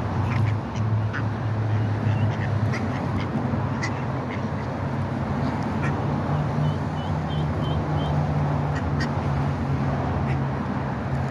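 Ducks quacking and calling while being fed, with a steady low hum underneath.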